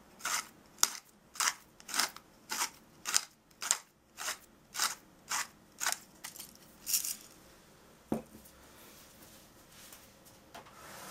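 Clear acrylic hand pepper mill grinding peppercorns: a dry, crunchy rasp with each twist, about two a second, stopping after about seven seconds. A single knock follows about a second later.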